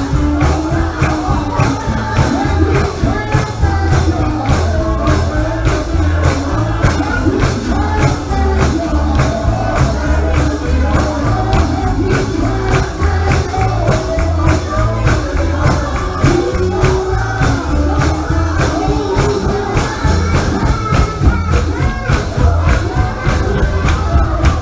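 Live gospel song with singing over a band, a tambourine keeping a steady beat and a heavy bass line.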